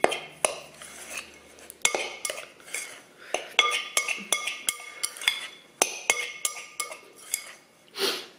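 Steel table knife knocking and scraping against a glass mixing bowl as it cuts through crumbly pie dough. The strikes come irregularly, a few a second with short pauses, and many leave a brief ringing tone from the glass.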